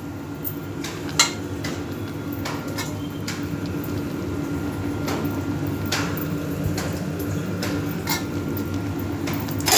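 Metal spoon clinking and scraping against a stainless steel pot as chapati pieces are stirred into a curry. There are scattered clinks, the sharpest about a second in, over a steady low hum.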